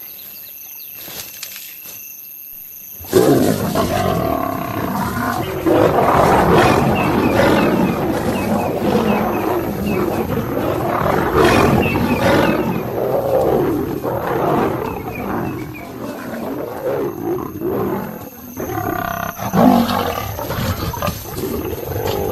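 Night insects chirring steadily, then about three seconds in lions break into a fight: loud snarling and growling that comes and goes in waves as lionesses face a charging nomad male lion.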